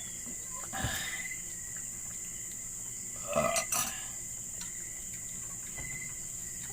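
Steady high insect chirring, broken by two brief louder sounds, one about a second in and one around three and a half seconds in.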